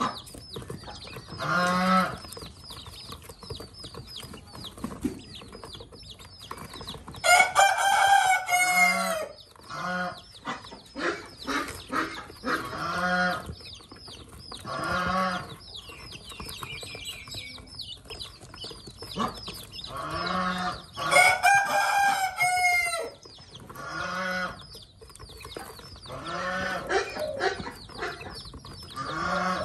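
Newly hatched Pekin ducklings peeping constantly in quick, high, falling chirps. Over them, louder calls from other poultry come every few seconds, two of them longer and drawn out.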